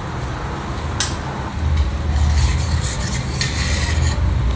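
Metal idli plate and steel bowl being handled as steamed idlis are lifted off the plate: a single metal clink about a second in, and a short scrape near the end, over a steady low hum.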